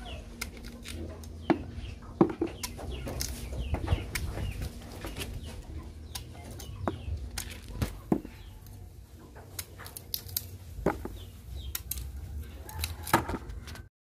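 Chickens clucking, with many scattered sharp clicks and knocks over a low rumble; the loudest knocks come about a second and a half in, at about two seconds, and near the end, where the sound cuts off suddenly.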